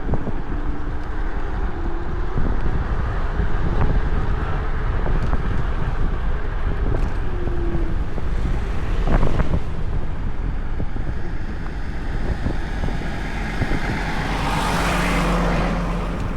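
Wind buffeting the microphone of a chest-mounted camera on a moving electric scooter, a steady rumble of wind and ride noise. There is a brief swish about nine seconds in and a swell of hiss near the end.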